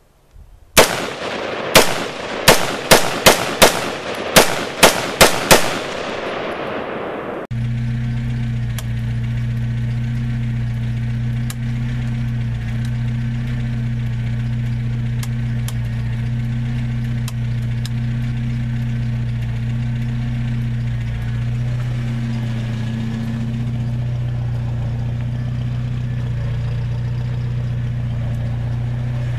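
A series of about ten loud, sharp bangs over several seconds, then the 1995 Jeep Wrangler's engine idling steadily from about seven seconds in.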